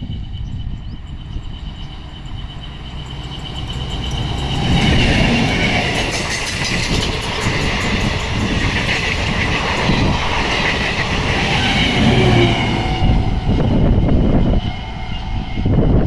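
DEMU (diesel electric multiple unit) passenger train passing close by, its wheels clattering over the rail joints. The sound builds from about four seconds in and stays loud through the rest.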